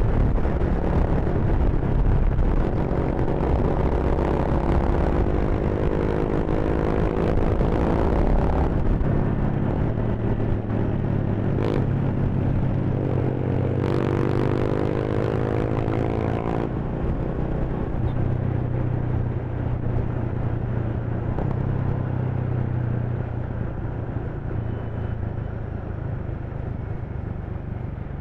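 Honda Rebel 300's single-cylinder engine accelerating, its pitch rising twice as it pulls, then running steadily lower and easing off near the end.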